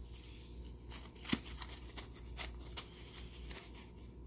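Hands unwrapping a small fossil from a foam packing sleeve: scattered light rustles and clicks, with one sharper click just over a second in.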